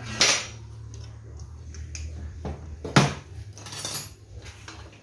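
Metal tools and chainsaw parts clinking and knocking on a workbench: two sharp metallic clinks, one right at the start and one about three seconds in, with a few lighter taps between, over a steady low hum.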